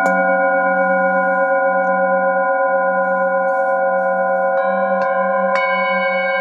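Metal singing bowls ringing, struck with a wooden mallet: one strike right at the start, then three lighter strikes in the last two seconds. Several bowls sound together as long, layered ringing tones over a low hum that wavers slowly.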